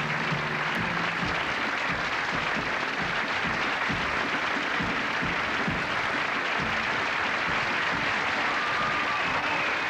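Theatre audience applauding steadily, with the last held notes of the pit orchestra's music dying away about a second in.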